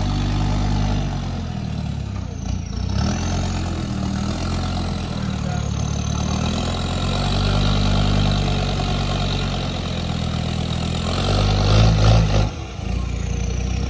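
Land Rover Discovery 2's engine running at low revs with a camper trailer hitched behind, a steady low drone that swells near the end.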